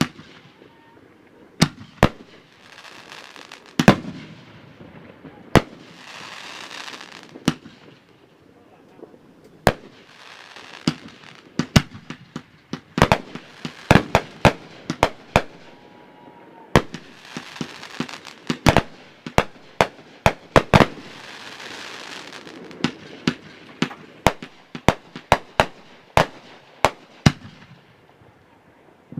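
Consumer fireworks fired in sequence from fused mortar tubes: sharp bangs at irregular intervals, coming in quick clusters through the middle, with stretches of hiss between them.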